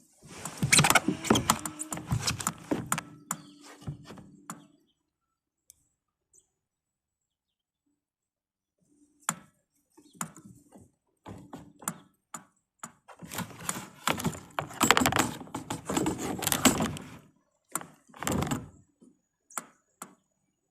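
Rattling and knocking, like gear being handled in a small boat, in two busy stretches of about four seconds each: one at the start and one after about thirteen seconds, with a few single knocks between them.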